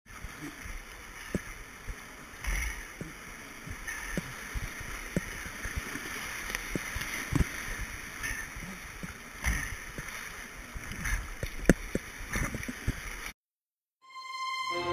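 Whitewater rapids rushing around a kayak, with irregular thumps and knocks as the boat and paddle hit the waves. The sound cuts off suddenly near the end, and music begins to fade in.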